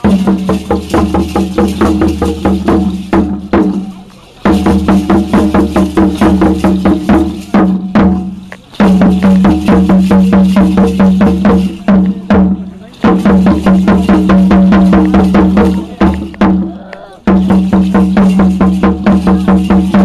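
Drumming for Aztec-style danza dancers: rapid, even beats in phrases of about four seconds, each ending in a brief pause.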